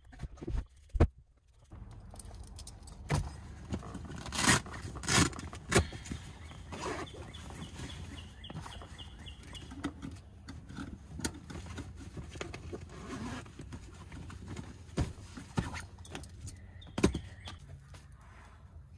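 Strap buckles and clips of a hammock-style fabric dog seat cover clicking and knocking as it is fastened around a pickup truck's rear headrests and seat. A series of sharp clicks, loudest about a second in and again four to six seconds in.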